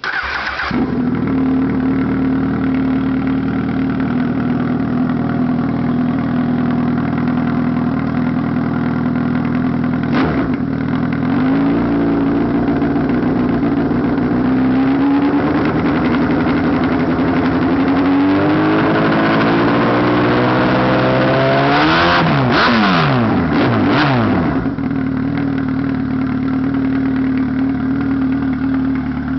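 2007 Honda CBR1000RR's inline-four engine through a custom muffler welded straight onto cut-down headers: it starts, settles into a loud idle, gets a short blip about ten seconds in, is revved slowly up, given several quick sharp blips, then drops back to idle. The exhaust is louder than the owner wanted.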